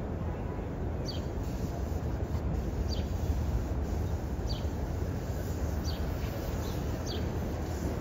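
Low, steady rumble of an R62A subway train approaching along an elevated steel structure, still at a distance. A short high chirp, falling in pitch, repeats about every second and a half.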